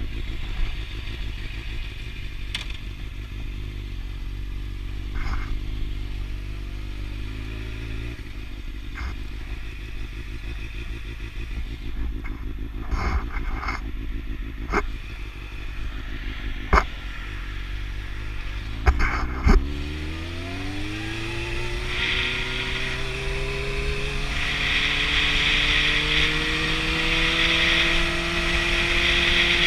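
Inline-four sport motorcycle engine running slow and steady, with several sharp clicks. From about two-thirds of the way in, it pulls away, its pitch climbing steadily as a hiss builds with speed, and it dips sharply right at the end.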